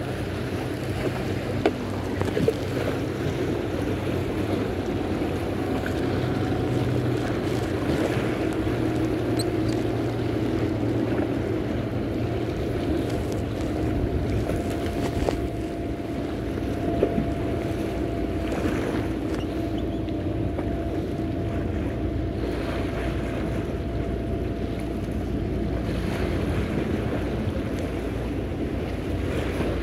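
A motorboat's engine running steadily out on the water, heard through wind on the microphone and small waves washing against rocks.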